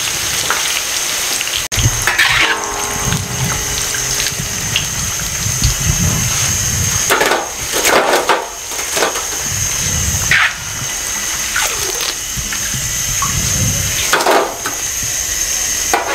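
Spring rolls deep-frying in hot ghee in an iron karahi: a continuous sizzling hiss of bubbling oil. Several louder bursts come as the rolls are stirred and lifted out with a perforated steel skimmer.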